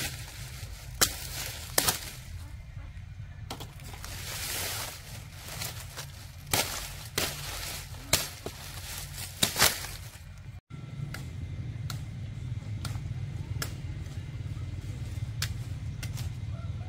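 A series of sharp knocks or chopping strikes at irregular intervals, about eight in all, over a light hiss. Near the end it gives way to a steady low rumble with faint light clicks.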